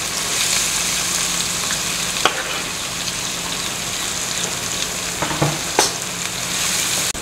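Chopped onions frying in hot mustard oil in a kadhai, with a steady sizzle. There are a couple of sharp clicks, about two and six seconds in.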